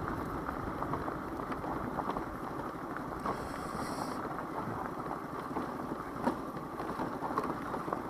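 Daelim Witty 100 scooter on the move, heard as steady wind noise on the microphone over the rumble of the scooter and its tyres on a wet road, with scattered light crackles.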